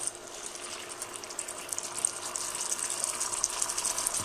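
Beef pieces bubbling and sizzling in their cooking liquid in a frying pan as the water boils off, a steady crackle that grows a little louder toward the end.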